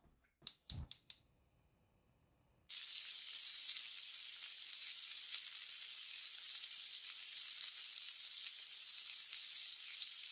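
Four quick sharp clicks about half a second in. Then, after a short pause, vegetables frying in a hot wok start sizzling suddenly and go on sizzling steadily.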